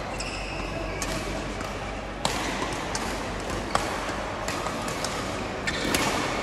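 Badminton hall sounds: a few sharp racket-on-shuttlecock hits ring out at irregular intervals over the hall's steady background, with a brief high squeak near the start.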